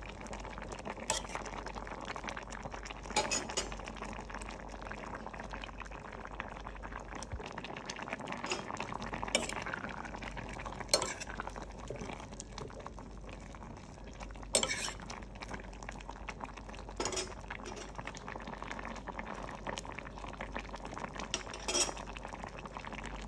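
A ladle stirring simmering sour curry in a stainless steel pot, with a steady bubbling and a handful of sharp clinks of the ladle against the pot.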